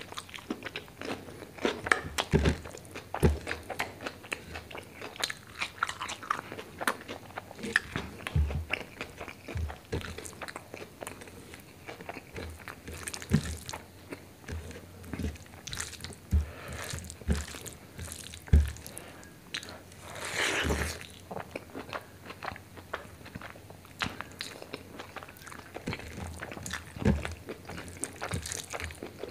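Close-miked eating: a person chewing and biting mouthfuls of rice with chicken liver and gizzard curry eaten by hand, heard as many short mouth clicks and chews.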